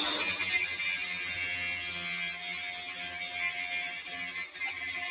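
DeWalt 18-volt cordless angle grinder grinding the steel edge of a lawn mower blade: a steady, hissing grind with a thin whine under it. The dull, rounded-over edge is being ground back to an angle to sharpen it.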